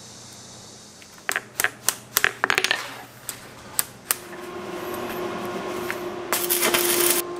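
Steel chainsaw chains clinking and rattling against each other and a metal workbench as they are handled: a quick run of sharp metallic clinks. After that comes a steady hum, with harsher noise building near the end.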